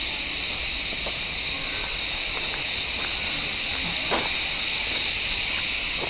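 Chorus of cicadas: a steady high-pitched buzz without a break.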